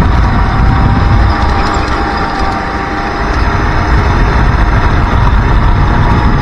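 Racing kart engine running steadily at speed, heard from the driver's seat, with a steady whine over a dense low rumble.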